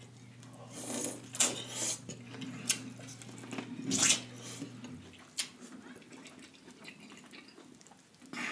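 Close-miked wet eating sounds: a sauce-soaked piece of corn on the cob being bitten and chewed, with several sharp wet smacks and clicks of the mouth.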